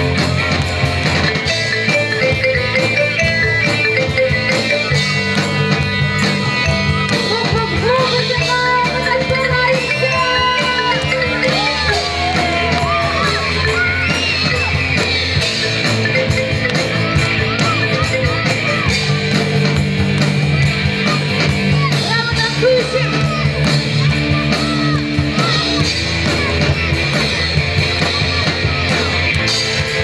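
Rock band playing live with electric guitars, bass and drum kit, a lead line bending up and down in pitch over a steady bass line.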